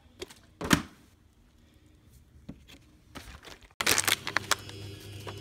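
Handling noise from a phone and a plastic water bottle being carried: scattered knocks and crinkling, with one sharp knock under a second in. Nearly four seconds in the sound changes abruptly to a steady low hum with more clattering.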